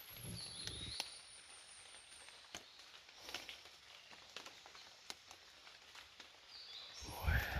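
Quiet forest with a faint short two-note bird chirp at the start and a thin high whistle that slowly falls in pitch, over scattered light clicks and rustles. Near the end comes a loud, low rumble of handling or movement close to the microphone.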